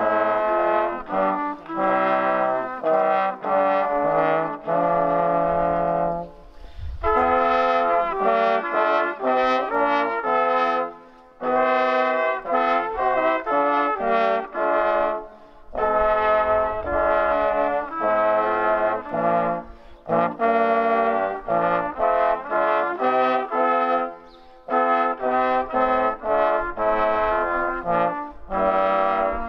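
A brass quartet, a trumpet and another small high brass horn over two trombones, playing together in chords. The music comes in phrases of about four to five seconds with short breaks for breath between them.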